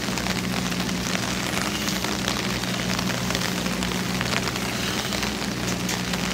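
Steady rain falling, an even hiss made of many small drop ticks, over a steady low hum.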